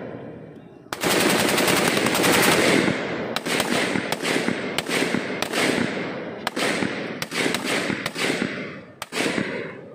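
Volley of gunfire from a line of INSAS 5.56 mm rifles firing together. Shots overlap thickly from about one to three seconds in, then thin out into separate shots and short strings, each trailing off in an echo, and die away near the end.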